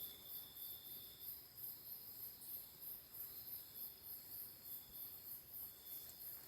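Faint chorus of night insects: a very high pulsing trill repeating about three times a second over steady high-pitched droning.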